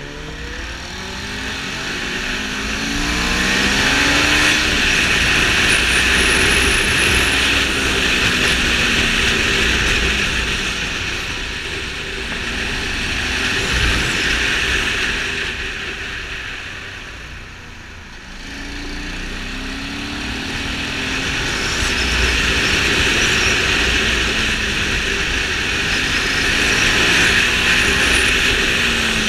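Wind rushing over a helmet-mounted camera on a Ducati Multistrada 620, swelling and fading with road speed, over the bike's air-cooled L-twin engine. The engine revs up through the gears early on and again about twenty seconds in, and the bike eases off around eighteen seconds.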